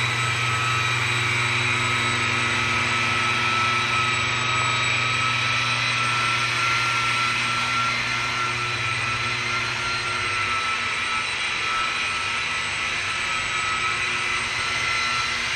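Electric car polisher with a foam buffing pad running steadily on a car's paint: a constant high whine over a low hum, unchanging in pitch.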